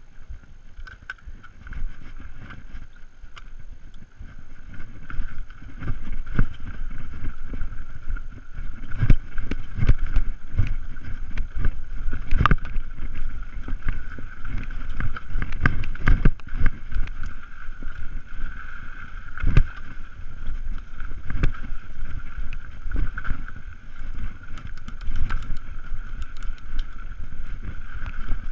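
Mountain bike riding fast down a dirt trail: tyres rolling and rattling over rough ground, with frequent knocks from bumps and a steady high buzz. Wind rumbles on the microphone.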